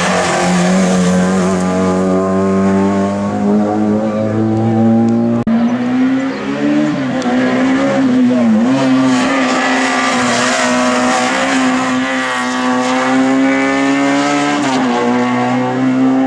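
Racing car engine held at high revs, its note rising slightly and then jumping higher about halfway through, with brief dips in pitch as the throttle is lifted and reapplied through the slalom.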